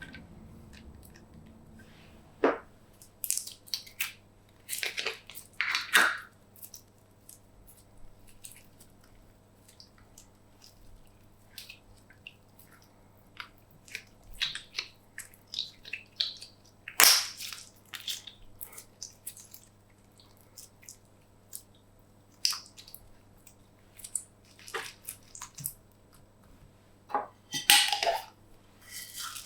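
Clear slime being pressed, stretched and mixed by hand, giving irregular sticky clicks, crackles and sharp pops, with a few louder snaps.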